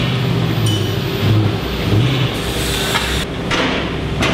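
Ford Mustang GT's 5.0-litre V8 with a Cobra Sport H-pipe centre section (resonators deleted) running at low revs, with a deep, throaty exhaust rumble that swells and eases unevenly as the car creeps forward under light throttle.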